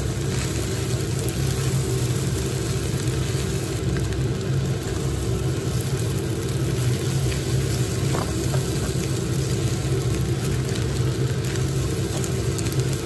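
A steady low mechanical hum dominates. Over it, a spatula stirs and scrapes fried rice in a nonstick pan, heard as a few faint scrapes and taps.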